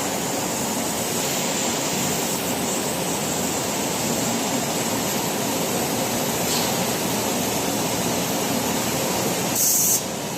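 Whitney 4400 CNC turret punch and plasma machine running with a steady rushing noise and no punch strokes. Near the end a short, sharper hiss sounds, and then the noise drops slightly.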